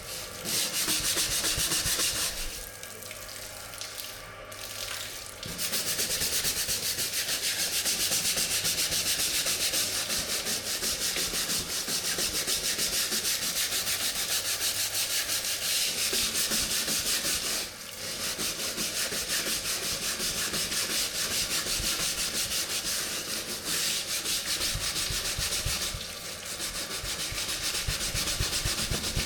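Fast, continuous scrubbing on a hard surface, the sound of cleaning down a food-prep table. It stops for a few seconds near the start and pauses briefly twice later.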